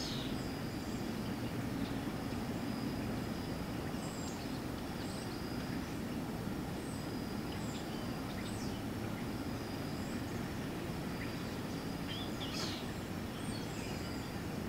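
Steady outdoor background ambience: a continuous low rumble with a thin, unbroken high tone and scattered short, high chirps.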